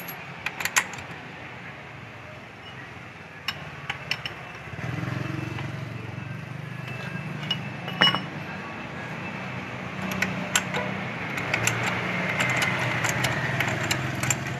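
Scattered sharp metal clicks and clinks of a clutch holder tool and socket wrench on the Yamaha Mio's CVT clutch bell and centre nut as the clutch nut is worked loose. Under them is a steady low hum that grows louder about five seconds in.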